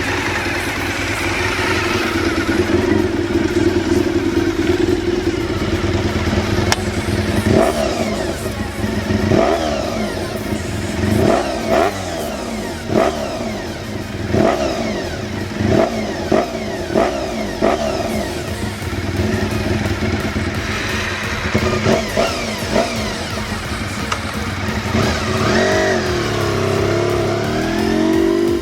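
Honda VFR400R NC30's V-four engine running steadily, then revved in a string of about a dozen quick throttle blips, each rising and falling sharply, with more revving near the end.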